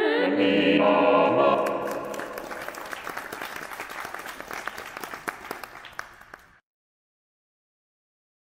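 Blob Opera's four computer-voiced opera blobs sing a chord that slides in pitch for about a second and a half. Applause from the app's virtual audience follows, fading, then cuts off suddenly about two-thirds of the way through.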